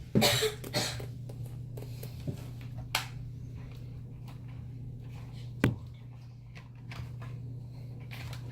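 RC car being run on a staircase: a short rushing burst near the start, then a few sharp knocks, the loudest about five and a half seconds in, over a steady low hum.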